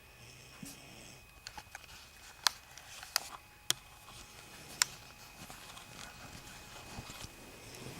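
A handful of sharp clicks and taps, four of them loud, spread over a few seconds, with light rustling over quiet room tone.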